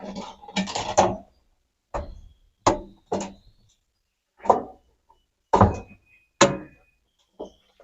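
A string of separate hard plastic knocks and clunks, about eight spread irregularly, some with a short ring after, as the washing machine's plastic body parts are handled and set in place.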